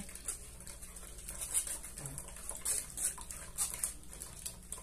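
A metal spoon scraping and pressing blended corn through a stainless-steel mesh sieve, a string of short, irregular rasping strokes.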